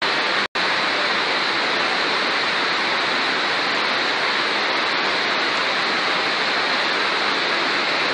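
Floodwater rushing in a fast torrent down a street and around a stuck car: a steady, unbroken rush of water, with a brief cut-out in the audio about half a second in.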